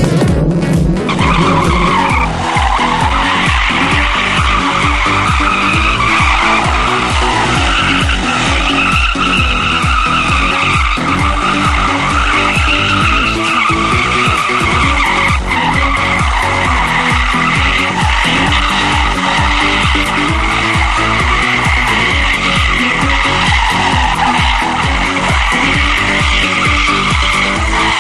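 Rear tyres of a Mercedes-Benz W123 coupe squealing without a break as the car spins its wheels in circles in a smoky burnout, the squeal wavering up and down in pitch. Music with a steady beat runs underneath.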